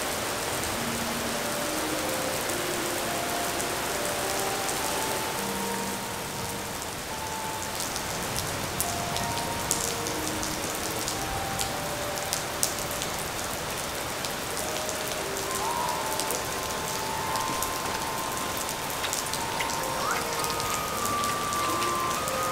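Steady rain falling on a wet wooden boardwalk, with sharper nearby drops ticking from about eight seconds in.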